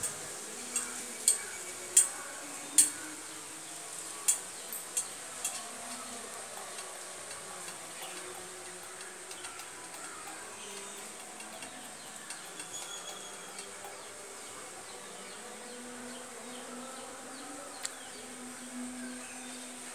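Steady buzzing of insects with a thin high hum, broken by a run of sharp clicks in the first few seconds and one more near the end.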